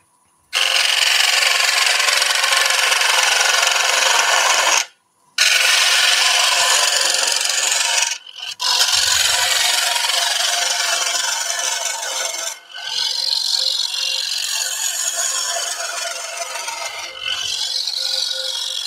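Woodturning tool cutting the inside of a wooden bowl spinning on a lathe, a steady hiss of shavings being peeled off. It is broken by a few brief pauses between passes and is a little lighter in the last few seconds.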